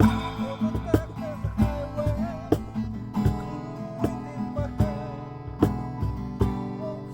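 Acoustic guitar strummed in a steady rhythm of chords, with a voice singing a wavering melody over it.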